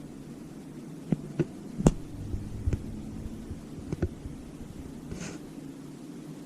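A few sharp, irregularly spaced clicks and knocks, the loudest about two seconds in, over a steady low hum, followed by a brief hiss.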